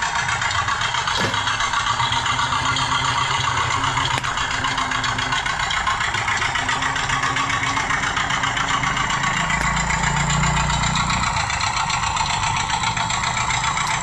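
The small engine of a miniature working-model cement concrete mixer running steadily. A deeper rumble joins for about two seconds near the ten-second mark.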